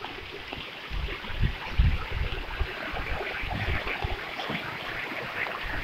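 Steady hiss of rain falling, with irregular low rumbles underneath.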